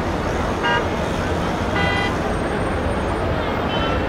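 Heavy, jammed city traffic making a steady noise, with three short car horn toots: about half a second in, near two seconds, and near the end.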